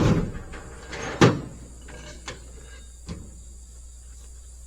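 Sharp metal clanks from load chains and a chain binder being handled during tie-down: a loud clank at the start, another about a second later, and a lighter knock about two seconds after that.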